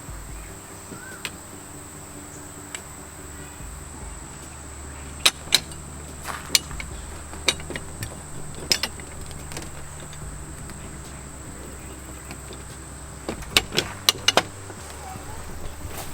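Metal door-latch parts and a mounting plate clicking and tapping as they are fitted together by hand, in scattered knocks with a cluster of clicks near the end, over a steady low hum.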